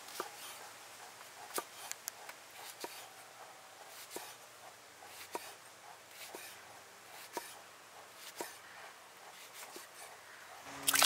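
A large knife chopping raw jackfruit into chunks on a wooden log chopping block, a sharp knock about once a second. Music comes in near the end.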